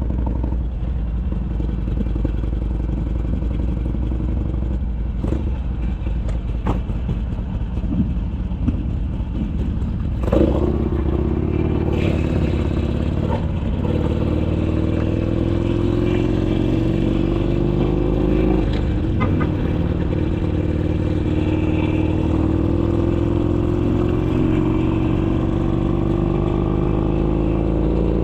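Harley-Davidson Sportster Iron 883's air-cooled V-twin through an RSD 2-into-1 exhaust: a steady low rumble for about the first ten seconds, then a sudden change and the engine note climbing in long rising pulls as the motorcycle accelerates.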